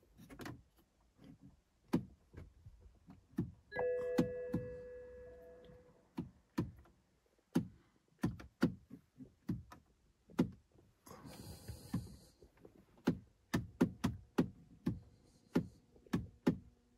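Irregular clicks and knocks as the key and start button of a BMW F10 are tried, with an electronic chime ringing for about two seconds around four seconds in and a short hiss about eleven seconds in. No engine cranking is heard: the car's corrupted CAS4 immobiliser module will not switch on the ignition or crank the engine.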